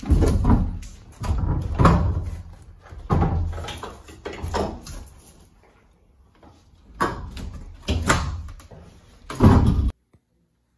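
Sliding glass patio door being worked in its new frame: a run of about seven loud thumps and rattles with short gaps between, cutting off abruptly near the end.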